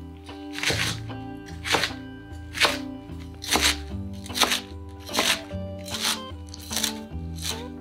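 Kitchen knife cutting through napa cabbage down onto a wooden cutting board, about nine cuts, roughly one a second, with background music under them.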